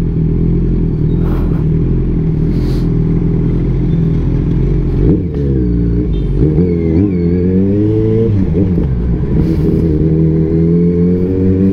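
Kawasaki Z1000 inline-four motorcycle engine running through a single exhaust while riding. It holds a steady note at first, dips and blips up and down several times around the middle, then climbs slowly in pitch as it accelerates near the end.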